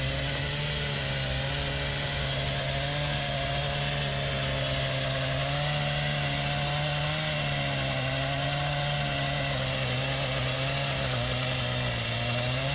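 Gas-powered two-stroke power cutter (concrete-saw power head) fitted with a trenching chain arm, running steadily at a constant high speed with a slight waver in pitch.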